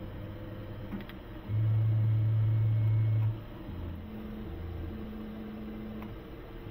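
Tormach PCNC 440 CNC mill's axis drive motors humming in steady tones as the table is jogged to touch off the workpiece with a 3D taster. One long, louder tone runs from about a second and a half in to past three seconds, followed by several shorter tones at two different pitches.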